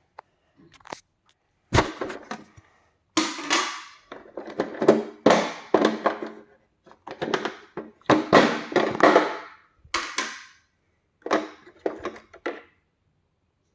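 A series of short thuds and clattering knocks, some ringing briefly, coming in bursts with silent gaps between them.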